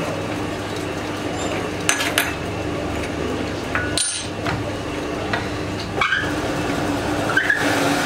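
Metal lathe running with a steady hum, with several sharp metallic clinks as the tool post and carriage are worked; the hum breaks off briefly about halfway.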